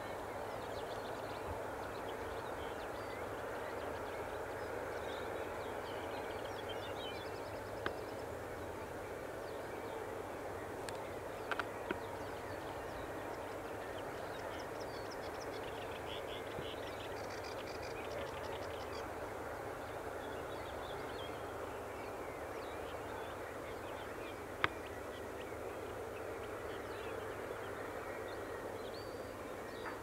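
Outdoor ambience: a steady background hiss with birds calling, including chirps and bursts of rapid trilling, and a few sharp clicks.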